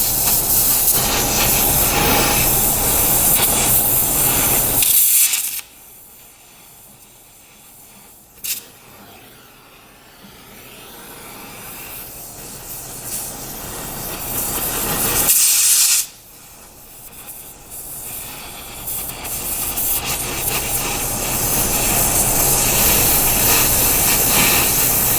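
Oxyacetylene torch flame hissing as it heats a rusted welded nut so the nut expands away from a stuck bolt. The hiss drops abruptly to a much quieter level about five seconds in, with one sharp click near eight seconds, and again about sixteen seconds in, then builds back to a loud steady hiss.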